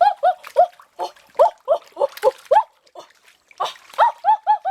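Dog whining in a rapid run of short, high yelping cries, several a second, with a brief pause in the middle.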